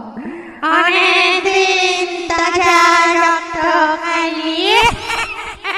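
Ghost horror sound effect: a voice-like wail with heavy vibrato, held on one pitch and gliding upward near the end before breaking up.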